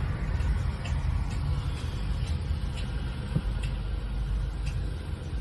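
Crane truck engine running with a steady low rumble, with faint light ticks about twice a second.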